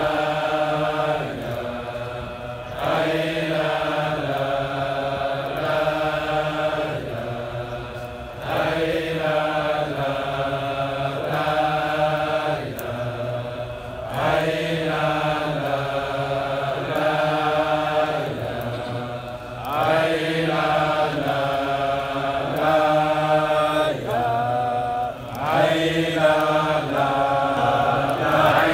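A crowd of men chanting in unison, a collective Sufi dhikr of a Friday hadra. Their voices hold long notes in phrases of a few seconds, each phrase picking up again after a short breath.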